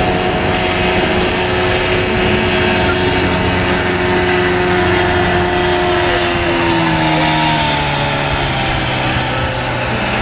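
An engine running steadily, its pitch dropping about six to seven seconds in as it slows.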